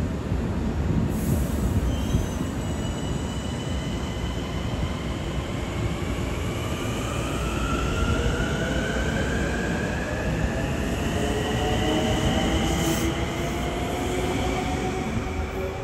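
Long Island Rail Road electric multiple-unit train pulling out of the station, with steady rail and wheel rumble. From about six seconds in, its traction motors give a whine that rises in pitch as it gathers speed.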